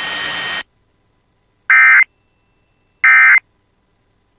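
Emergency Alert System end-of-message signal: short, evenly spaced bursts of digital data tones, a little over a second apart, two heard in full and a third starting at the very end. Before them a steady hiss cuts off suddenly about half a second in.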